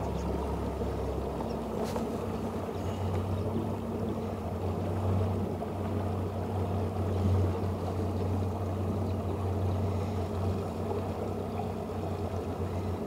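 Bass boat under way, its Yamaha SHO 115 hp outboard motor running steadily with a low hum, along with water noise from the hull moving through the lake.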